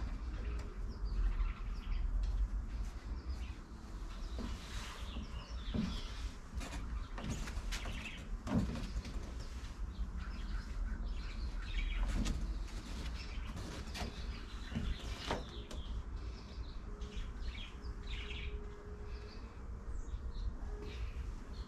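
Scattered knocks and clicks of a bike being handled and shifted on a bike repair stand, over a steady low rumble with birds chirping in the background.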